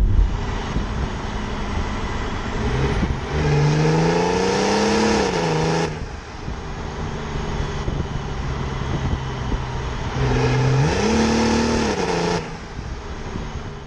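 Modified BMW 335d's twin-turbo diesel inline six heard from beside the exhaust tailpipe while driving, over steady road and wind noise. It pulls hard twice, about three seconds in and again about ten seconds in, each time rising in pitch, then ending abruptly.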